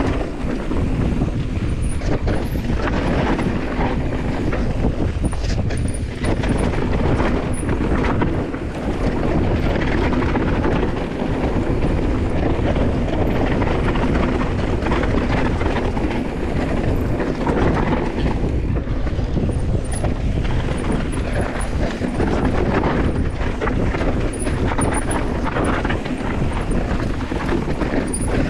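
Mountain bike riding fast down a rough dirt trail: a continuous rumble of knobbly tyres over dirt, roots and stones, with the chain and frame rattling and wind buffeting the microphone.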